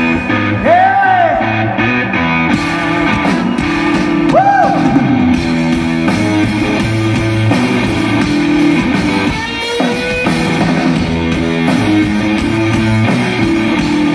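Live rock band playing: electric guitar and drum kit, with two swooping notes that rise and fall in the first five seconds.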